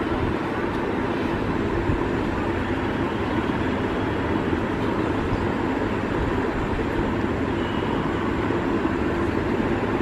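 Steady low background rumble, even throughout, with no distinct bird calls or other events standing out.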